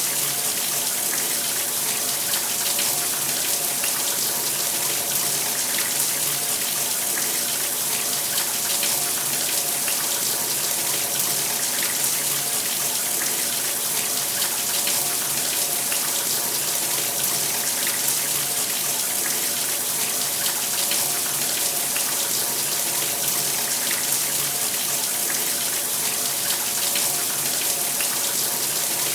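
Shower running: a steady hiss of water spraying from a shower head, with a faint steady hum underneath.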